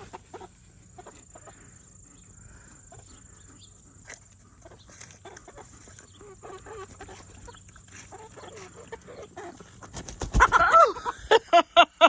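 Chickens clucking quietly, then from about ten seconds in a burst of loud, rapid squawking calls, about five a second.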